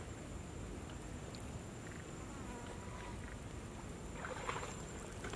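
Faint outdoor ambience: a steady high-pitched insect drone over a low background rumble, with a few soft splashes of water near the end.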